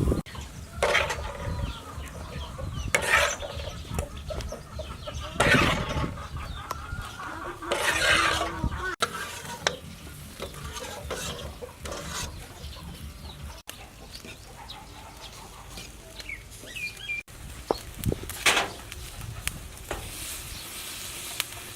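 Domestic chickens clucking, with a handful of loud calls in the first eight seconds and another near the end, over a low steady background.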